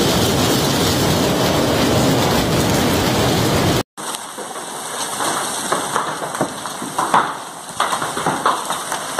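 Large hailstones pounding on wet pavement in a dense, steady roar. After a brief break about four seconds in, an uneven clatter of hailstones striking concrete and splashing into a small pool, with separate sharp cracks among the patter.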